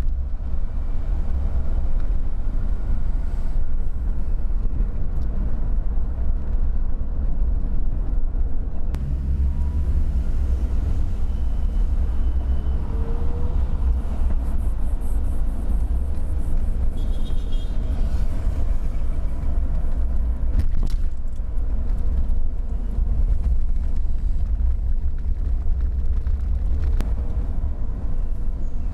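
Steady low rumble of a car driving, heard from inside the cabin: engine and tyre-on-road noise.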